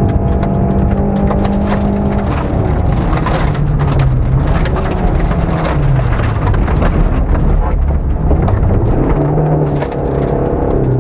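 Opel Corsa A GSI rally car's four-cylinder engine running hard on a gravel road, heard from inside the cabin, with gravel rattling and pinging against the underbody. The engine note drops a little over two seconds in, then rises and falls with the throttle.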